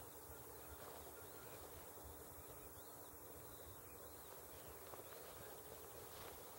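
Near silence: faint outdoor background hiss with a low steady hum, and a few very faint, distant bird calls in the middle.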